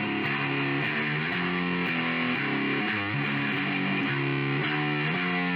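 Outro music: distorted electric guitar playing a riff with a steady beat.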